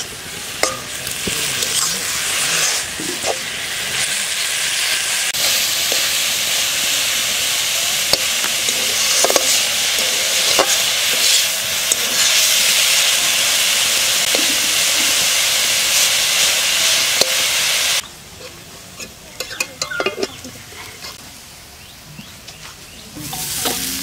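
Chopped bottle gourd leaves and green chillies sizzling as they fry in an aluminium kadai, stirred with a metal spatula that clicks and scrapes against the pan. About three-quarters of the way through, the sizzle stops abruptly, leaving quieter scrapes and knocks of the spatula.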